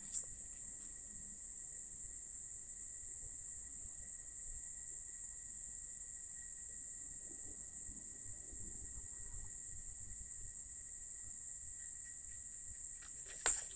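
Quiet room tone: a steady high-pitched whine with a fainter steady tone below it, over a low background rumble.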